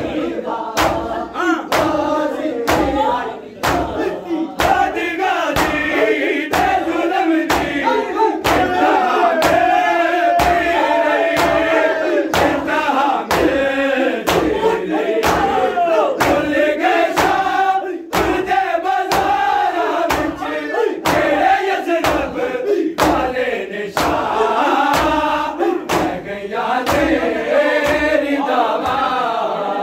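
Matam: a crowd of bare-chested men beating their chests in unison with open palms, a steady beat of sharp slaps, while the men chant together over it.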